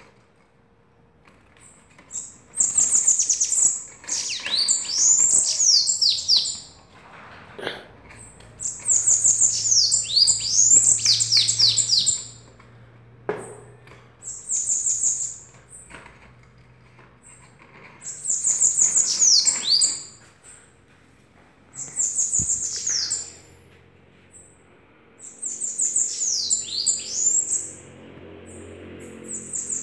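Caged bananaquit (sibite) singing again and again: about eight songs of high, thin, sibilant notes with quick falling sweeps, each a second or two long, separated by short pauses. The bird is in an excited, fiery state, stirred up by a hand moving at its cage.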